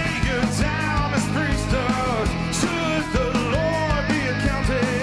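Rock band playing live: electric guitars, bass guitar and a drum kit with regular drum and cymbal hits, under a male lead singer's melody line.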